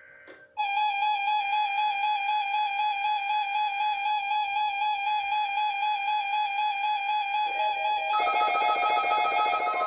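Music: a held, slightly wavering synth-like note starts abruptly just after the beginning and is joined by further sustained notes about eight seconds in.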